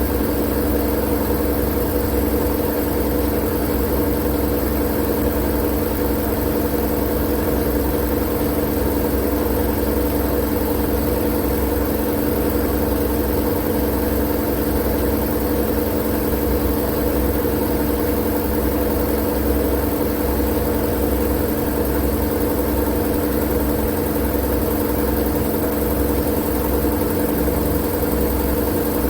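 Steady white-noise track: a constant machine drone with a low rumble, a hum and a hiss, unchanging throughout.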